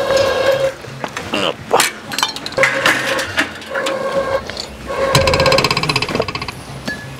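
Background music: a melody of held instrumental notes, with scattered sharp metallic clinks and knocks among them.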